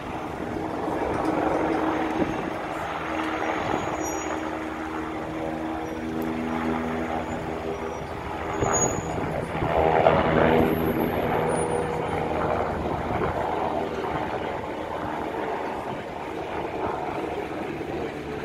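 Eurocopter Tiger attack helicopter running: continuous engine and rotor noise with steady tones that shift in pitch, loudest about ten seconds in.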